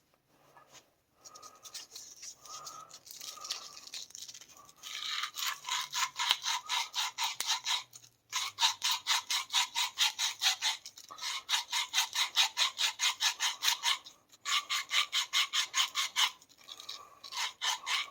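Emery cloth scuffing the end of a copper pipe to clean and roughen it before soldering: fast back-and-forth rubbing strokes, several a second, lighter at first, then in three brisk runs with short pauses between.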